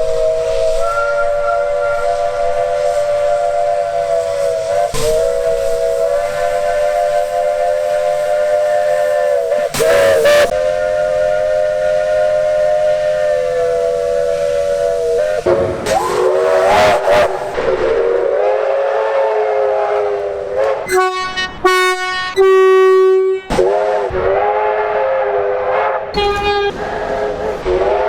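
Multi-note train horns sounding a series of long held chords, broken off suddenly several times. About sixteen seconds in the chord bends down and up in pitch as a train passes, and a few seconds later a shorter, single-note horn sounds before the chords return.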